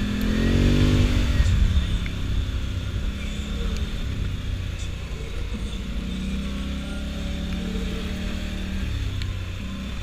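ATV engine running while riding, revving up and easing off in the first two seconds, then running steadily.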